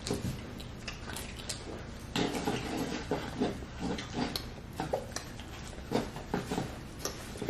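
Chewing and lip-smacking of people eating pizza, close to the microphone: irregular short smacks and clicks, busiest a couple of seconds in.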